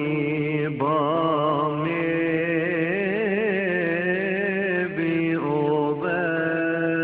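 Coptic church chant: a voice singing long, wavering melismatic notes over a steady held low tone, with new phrases starting about a second in and again near the five-to-six-second mark.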